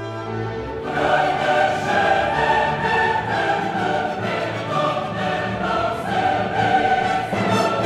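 Background music: a choir singing over an orchestra, growing louder about a second in.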